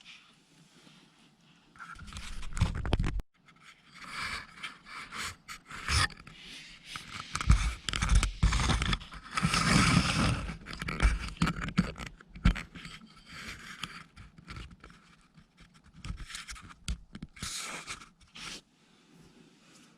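Irregular scraping and rubbing noises, with a short low rumble about two seconds in.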